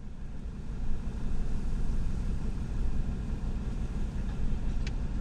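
A four-wheel-drive's engine running, heard from inside the cabin: a steady low rumble that grows a little louder about a second in. A brief click near the end.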